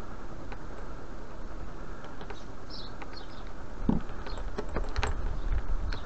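Light, scattered clicks and clinks of a small steel chain and pliers being handled as a wire link is squeezed closed, with a slightly heavier knock about four seconds in, over a steady low hum.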